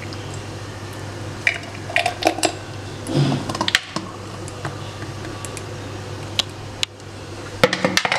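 A thick milkshake pouring from a blender jug into a glass tumbler, with a few light clinks and knocks of glassware, over a steady low hum.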